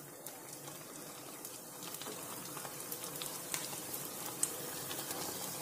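Malpuas frying in hot desi ghee: a low, steady sizzle with scattered small crackles.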